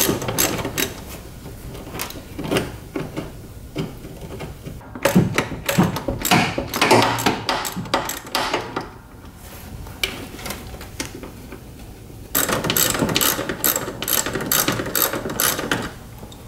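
Ratchet wrench clicking in three runs of rapid strokes, backing out a fine-threaded bolt on the brake booster at the firewall.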